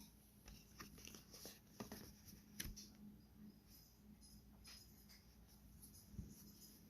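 Near silence with a few faint, scattered light taps and clicks of small objects being handled, the clearest about two and a half seconds in.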